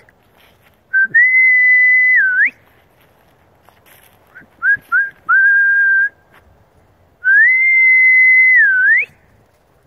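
A person whistling to call dogs: a long whistled note that rises, holds, dips and swoops upward at its end, then two short chirps and a shorter steady note, then a second long note like the first.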